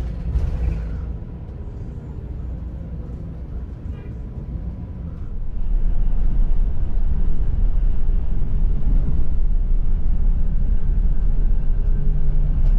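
Steady low rumble of a Scania double-decker coach on the move, heard inside the passenger cabin; it becomes louder about halfway through.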